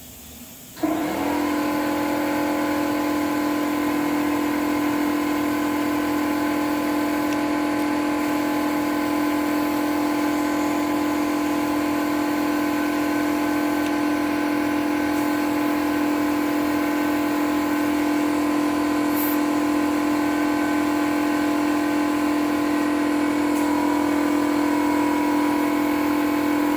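Ridgid air compressor cutting in suddenly about a second in and then running steadily with a strong, even hum.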